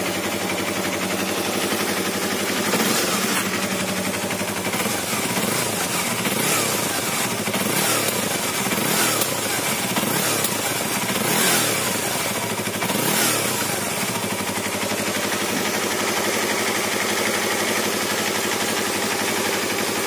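Yamaha R25's 250 cc parallel-twin engine through its stock exhaust. It idles, is revved up and dropped back several times in the middle, then settles into a steady idle.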